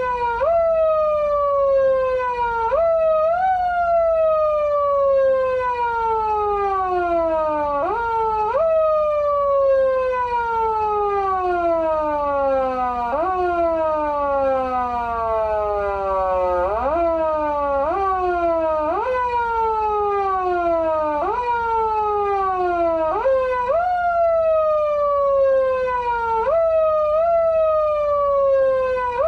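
Foot siren of a Patlite SAP-500BK-PV siren amplifier wailing through its speaker. The pitch is pushed up quickly by the pedal and let fall slowly, over and over at uneven intervals, like a mechanical siren winding up and down. Near the middle it is left to wind down much lower before it is pushed up again.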